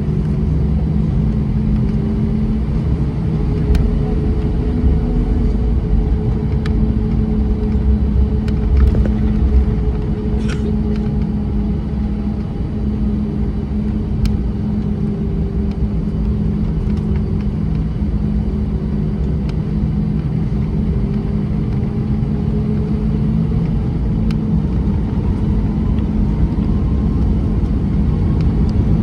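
Airbus A320 heard from inside the cabin: a steady rumble and engine hum at low thrust, with a few light clicks. Near the end a whine rises in pitch as the engines start to spool up.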